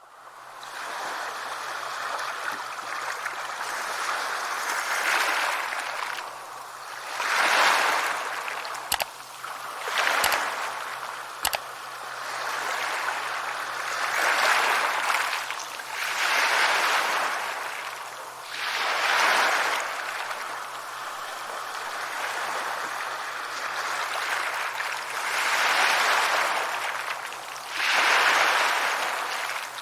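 Sea waves washing onto a beach: a steady hiss of surf that swells and ebbs as each wave breaks every few seconds. A few brief clicks sound about a third of the way in.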